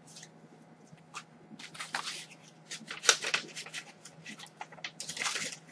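Paper packaging rustling and crinkling as it is handled, in irregular crackles, loudest about three seconds in and again near the end.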